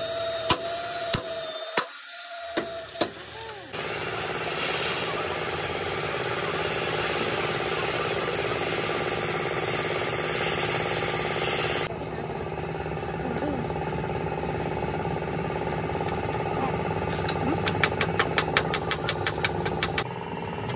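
A machine runs steadily, like an engine, after a few sharp clicks in the first seconds. Near the end comes a quick run of knocks, about five a second.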